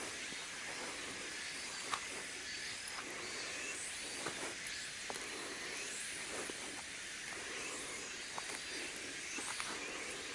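Outdoor ambience: a steady high hiss of insects, with a few faint scattered clicks.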